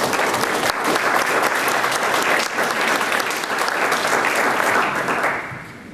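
Audience applauding, a steady round of clapping that dies away near the end.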